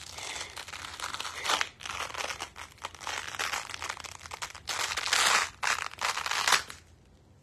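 Handling noise: clothing rustling and crinkling close to the phone's microphone, in a run of uneven bursts that stops shortly before the end.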